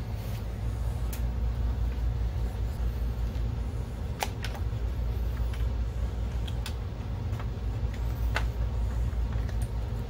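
Scattered light clicks and taps of plastic and metal parts as a projector's optic assembly is fitted back into its chassis by hand, about eight spread irregularly, over a steady low hum.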